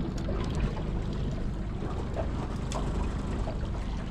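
Steady wind and water noise around a small open boat drifting at sea, with a few faint light knocks.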